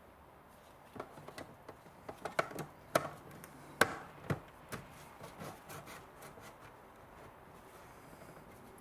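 Irregular sharp clicks and knocks of a metal car-radio mounting cage being handled, the loudest a few seconds in, then fewer and fainter toward the end.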